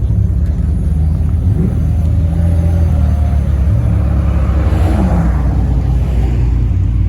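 Car engine running steadily close by, with a brief swell of engine noise about five seconds in that falls away in pitch.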